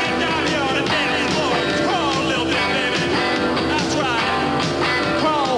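Live psychobilly rock band playing loud, with electric guitar and drums, and notes sliding up and down over the beat.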